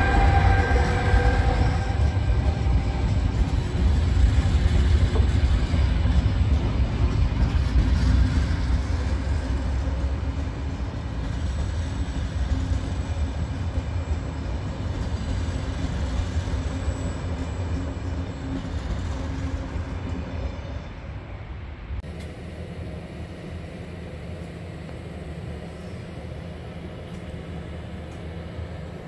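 Trenord regional train hauled by an E464 electric locomotive moving slowly, a steady low rumble that slowly fades. It gives way suddenly to a quieter steady hum near the end.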